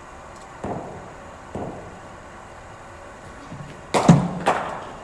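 Cricket ball impacts in a net session with a bowling machine. Two softer knocks come in the first two seconds, then two sharp cracks about half a second apart near the end, the first the loudest.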